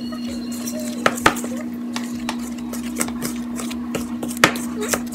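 Wooden spoon stirring stiff cookie dough in a plastic mixing bowl: a dry scraping with irregular knocks of the spoon against the bowl, about one a second. A steady low hum runs underneath.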